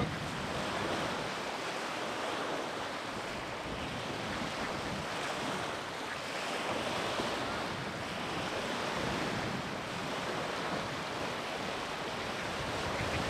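Steady rushing of wind, even and unbroken, with no distinct events.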